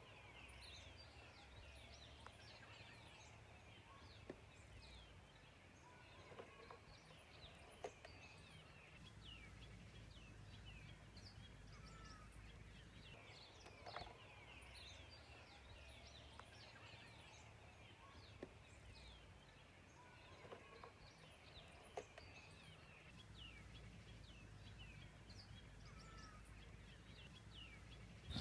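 Faint birdsong: many small birds chirping in short, falling calls, with a few soft knocks now and then and a low rumble underneath.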